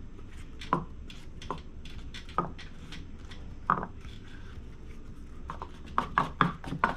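Scattered sharp taps and clicks of small objects handled on a tabletop, one every second or so, coming faster near the end.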